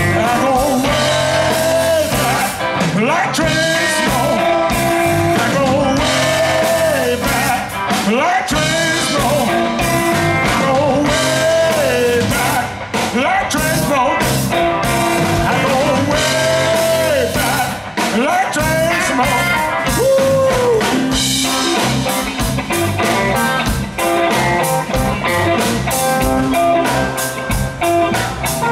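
Live blues band playing: a lead line full of bent notes, most likely electric guitar, over bass and drums.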